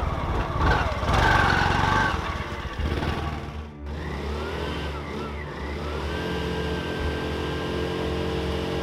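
Motorcycle tricycle (motorbike with sidecar) engine running on the road, revving and easing off, with a sudden break about four seconds in.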